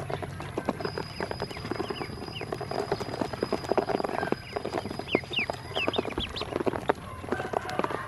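Ducklings pecking feed from a plastic basin: rapid, irregular clicks and taps of their bills on the plastic. A few short rising peeps come about five seconds in.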